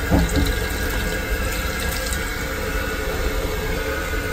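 Water running from a train toilet's push-button tap into the steel-and-plastic washbasin and over a hand, over the steady low rumble of the train.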